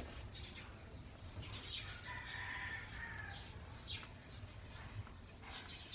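A rooster crows once, faintly, about two seconds in, over light rustling of hands working potting soil and plant leaves.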